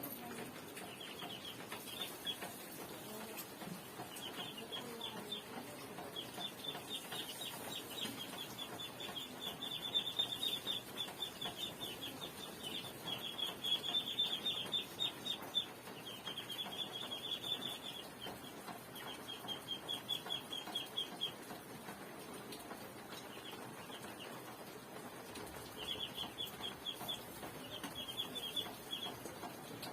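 A bird chirping in rapid high trills, repeated in runs of about one to three seconds with short pauses between them.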